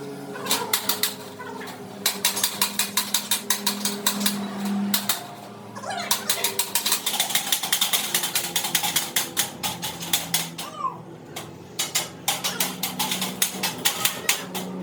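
Rapid runs of sharp metal taps, several to about ten a second, in bursts with short pauses, as from hammering on metal during fabrication.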